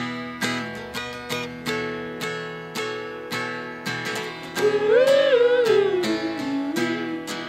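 Acoustic guitar strummed in a steady rhythm, about two strokes a second, in an instrumental gap of the song. About halfway through, a wordless sung note rises and falls over the guitar.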